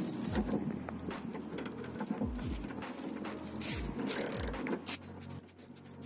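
Ratchet wrench with a socket on an extension being worked on a nut inside a car door: irregular clicks and metallic knocks, with a few louder ones a little past the middle.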